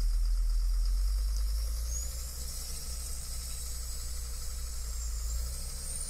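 Heavy diesel engine of a motor grader with a front snow plow blade, running with a low rumble that drops in level about two seconds in. A thin high whine then wavers slowly upward in pitch.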